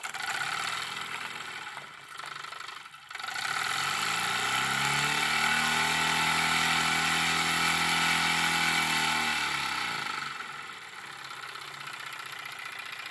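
Jensen #65 toy live steam engine running under steam, its steam making a steady hiss. About four seconds in the engine speeds up, its running pitch rising and holding steady, then it slows near ten seconds and the hiss drops to a quieter level.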